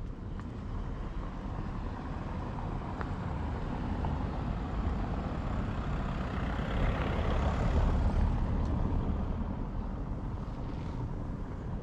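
A road vehicle passing by: its engine and tyre noise swells to a peak about two-thirds of the way through, then fades away.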